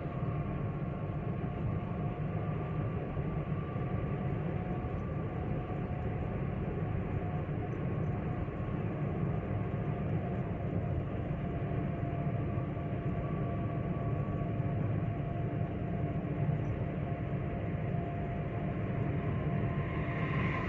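Steady road and engine noise of a Chevrolet Spin 1.2 LT cruising on a highway, heard from inside the car: a deep tyre rumble with a faint steady whine over it. Near the end there is a brief brighter rush, as of another vehicle passing close by.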